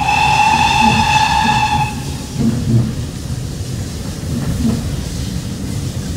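Steam locomotive whistle sounding one steady blast of about two seconds, then the rumble of the carriage running along the track with a few soft knocks, heard from inside the coach.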